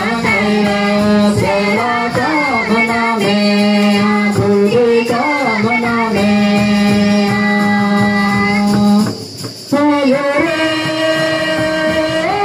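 Choir singing a Mundari church song through microphones and loudspeakers, in long held notes over a steady low sustained tone. The singing breaks off briefly about nine seconds in, then resumes.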